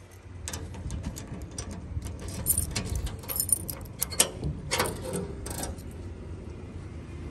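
A bunch of keys jingling and clicking as a key is worked in a door lock and turned, with a few louder sharp clacks between about four and five and a half seconds in.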